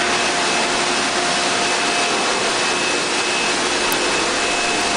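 A steady, loud rushing noise like running machinery or air handling, with a few faint steady whining tones running through it.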